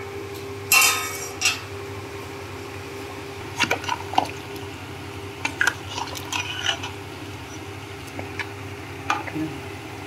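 A steel ladle clinking against a steel pot of thin gravy, scattered sharp clinks with some sloshing, over a steady low hum. A short, loud rush of noise comes about a second in.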